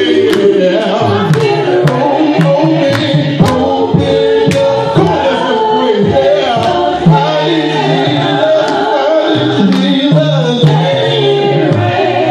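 A man singing a gospel song through a microphone and loudspeakers, with a steady beat of sharp percussive hits behind him.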